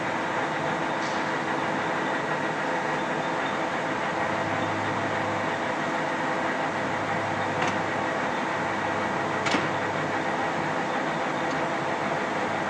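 Geminis GE1200N big-swing lathe running with its cross and compound power feeds engaged: a steady mechanical hum made of several held gear tones. A few short clicks break it, the sharpest about three-quarters of the way through.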